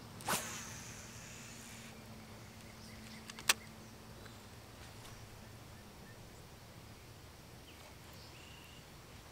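A fishing rod swishes through a cast just after the start, over a faint outdoor background with a thin insect-like buzz. A single sharp click comes about three and a half seconds in.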